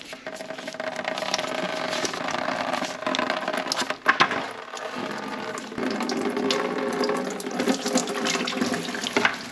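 Engine coolant gushing out of an opened plastic coolant drain screw and splashing in a steady pour.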